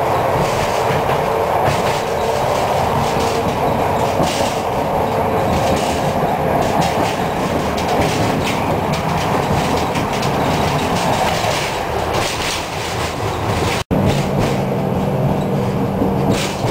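City tram car running along its line, heard from inside the passenger saloon: continuous rumble and rattle with the wheels clacking over rail joints. About fourteen seconds in the sound cuts out for an instant, and after that a steady low hum runs under the noise.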